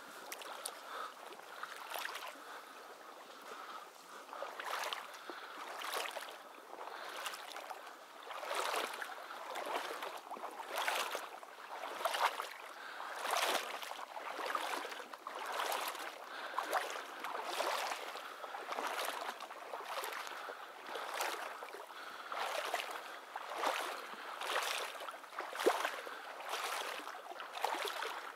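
Wading steps through shallow marsh water and tall reeds and grass: a swishing slosh with each stride, repeating about once a second.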